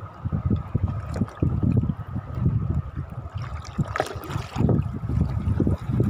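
Shallow seawater sloshing and lapping close to the microphone, with irregular low buffeting and a faint steady whine; a brief click about four seconds in.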